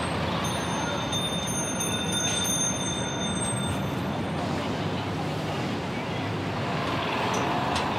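City street traffic: a steady wash of engines and tyres, with a thin high whine for the first few seconds.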